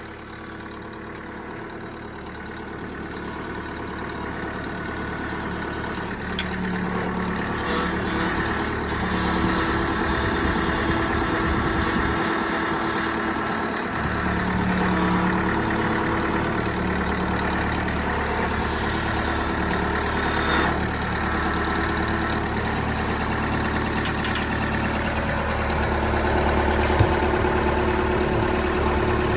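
A truck engine running steadily, its level slowly building through the stretch, with a few faint knocks.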